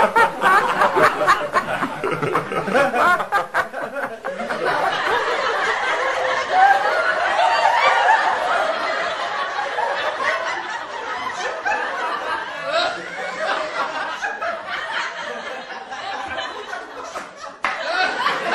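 Laughter: chuckling and giggling in short bursts.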